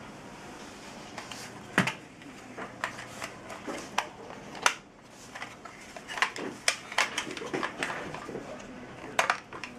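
Irregular clicks and knocks, the two loudest about two seconds and four and a half seconds in, with a run of smaller quick clicks later on.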